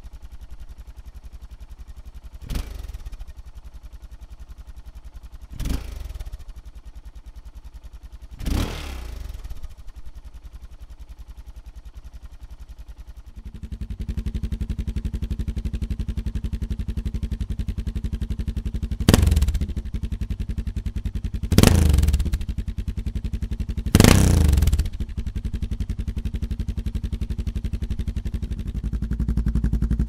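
Suzuki DR650 SE single-cylinder four-stroke engine idling through its stock Suzuki silencer, revved briefly three times. About 13 seconds in the exhaust switches to an MSR stainless steel round silencer with dB-eater: the idle is louder, with three more quick revs. Near the end it steps up louder again as the MSR runs without its dB-eater.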